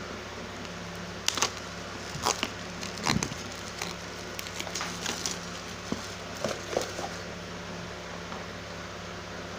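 A scattered series of short clicks, taps and crackly rustles from handling, over a steady fan-like hum. The handling stops about seven seconds in.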